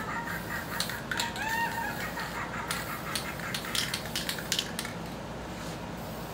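Aerosol spray paint can being shaken, its mixing ball rattling in a quick run of sharp clicks about two to four and a half seconds in. Chirping is heard over the first second or two.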